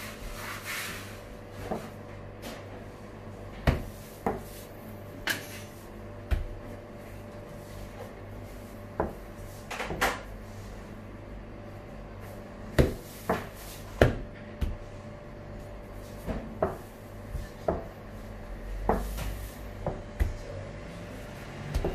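Long wooden baklava rolling pin knocking against a stone counter as layered baklava dough is rolled around it and pressed out. The knocks are sharp and irregular, about one a second, over a steady low hum.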